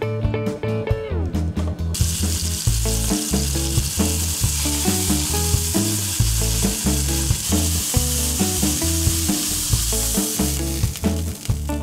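String-tied, herb-rolled pork tenderloin sizzling in oil in a frying pan as it is seared brown, over background music. The sizzle starts about two seconds in and dies away near the end.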